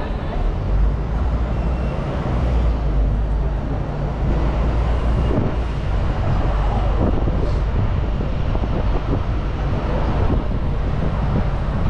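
Steady low vehicle rumble and road traffic noise.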